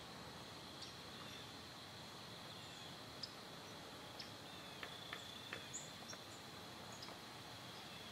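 Faint field ambience: a steady high-pitched insect trill over a light hiss, with a handful of short high chirps in the middle.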